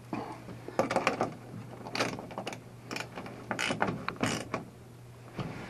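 Ratchet wrench clicking in short, irregular runs as it tightens 10 mm nuts onto the bolts of a greenhouse's metal roof frame; the clicking stops about a second before the end.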